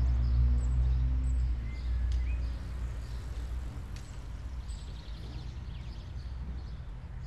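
Street ambience: a low traffic rumble that eases after the first couple of seconds, with small birds chirping now and then.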